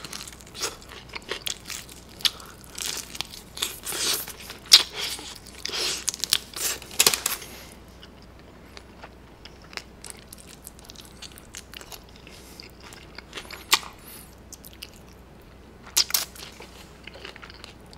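Close-miked biting and chewing of crispy fried chicken, the thin batter crunching. Crunches come thick and fast for the first seven seconds or so, then give way to quieter chewing with a few single sharp crunches near the end.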